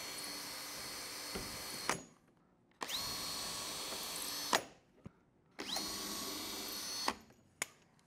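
Cordless drill in a drill guide boring 1/8-inch access holes into a wood panel. It runs three times for about two seconds each, a steady high whine, and the second and third runs spin up quickly to speed before cutting off.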